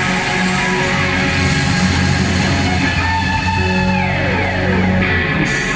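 Live rock band playing loud amplified music: distorted electric guitar over bass guitar and drums. Partway through, a guitar line slides down in pitch.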